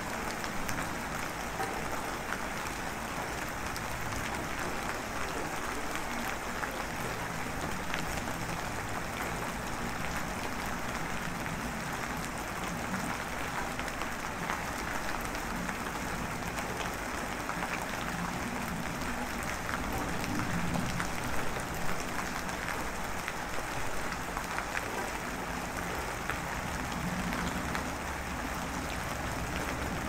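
Steady rain pattering: an even hiss of many small drops, swelling slightly about two-thirds of the way through.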